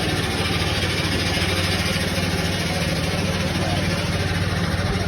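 An engine running steadily at an unchanging speed, a low even hum close by, over a broad hiss of street noise.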